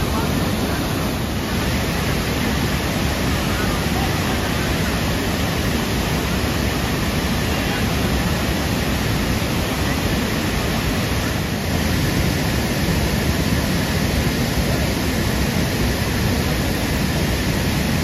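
Steady rushing of a wide waterfall, a broad sheet of muddy floodwater pouring over a long ledge and crashing into the pool below. It gets slightly louder about two-thirds of the way through.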